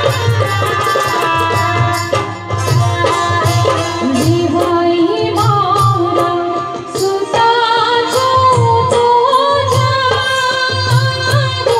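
Live Gujarati wedding folk song (lagnageet) through a PA system: tabla and dholak keep a steady rhythm under violin and keyboard, and a woman's singing voice comes in about four seconds in.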